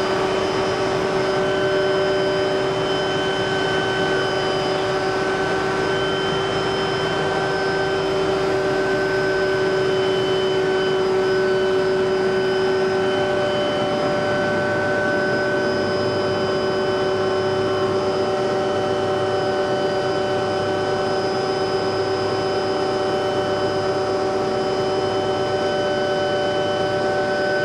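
Helicopter in flight heard from inside the cabin: a steady drone of engine and rotor noise with several steady tones on top, unchanging throughout.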